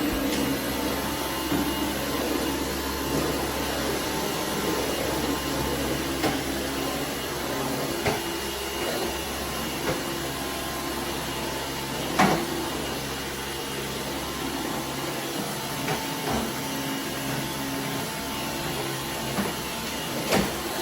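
Dyson Outsize cordless stick vacuum running steadily while vacuuming up spilled oatmeal, with a few sharp clicks, the loudest about twelve seconds in.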